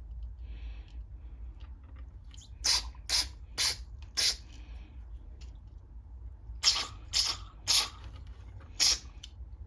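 Eight short, sharp spray hisses, in two sets of four about half a second apart, as the jets and passages of a small-engine carburetor are blown out.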